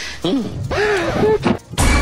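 A voice calling out with sliding, wavering pitch over background music. It cuts off briefly near the end, then a loud burst of music comes back in.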